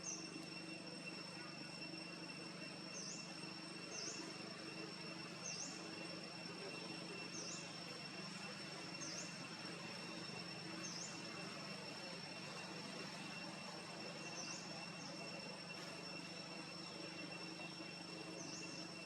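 Insects buzzing in a steady, high, even drone, with short chirps repeating every one to two seconds.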